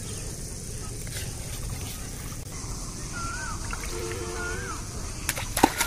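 Steady low rumble with short rising-and-falling whistled notes repeating about every second and a half, then a few sharp splashes and a plop of water at the riverbank near the end.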